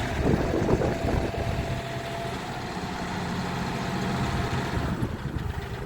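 Vehicle engine running steadily, a low idling hum.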